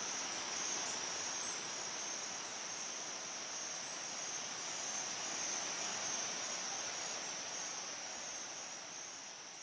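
Steady chorus of insects trilling at one high pitch, fading out near the end.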